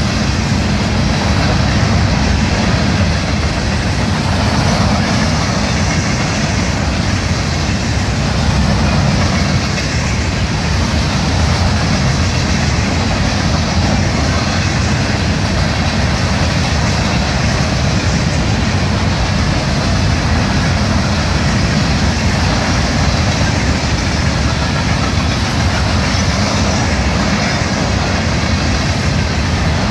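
Freight train cars rolling past, a loud, steady noise of steel wheels on rails.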